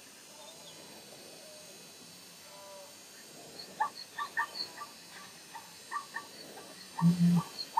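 Short croaking animal calls in quick clusters, starting about halfway through, over a low steady hiss. A few louder, deeper grunts come near the end.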